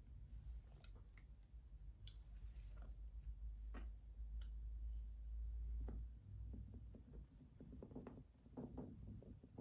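Palette knife dabbing and spreading thick black acrylic paint on a textured canvas: faint scattered clicks and light scrapes, coming more often near the end, over a low rumble that is strongest in the middle.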